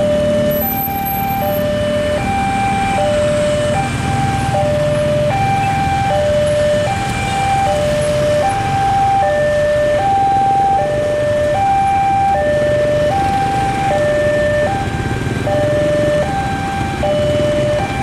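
Railway level-crossing warning alarm sounding a two-tone electronic chime, a higher and a lower note alternating steadily without a break, the signal that the barrier is down for an approaching train. Motorcycle engines run underneath.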